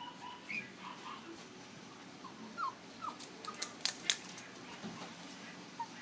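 West Highland white terrier puppy whimpering in a few short, high squeaks. A quick run of sharp clicks comes about halfway through.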